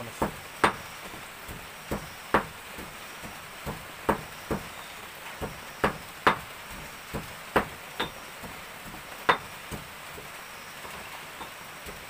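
Hands shelling boiled petai (stink bean) pods over a ceramic plate: irregular sharp clicks, about one or two a second, as the pods are split and the beans drop onto the plate. The clicks thin out in the last couple of seconds.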